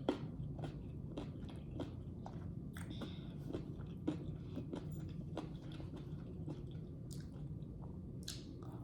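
A person chewing fruit close to the microphone: irregular wet clicks and smacks of the mouth.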